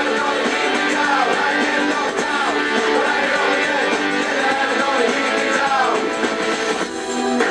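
Background music track led by guitar, with a brief dip in level near the end.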